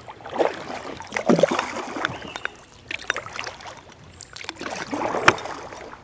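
Kayak paddle strokes in river water: irregular swishes, splashes and dripping as the blades dip and lift. A sharp knock comes about five seconds in.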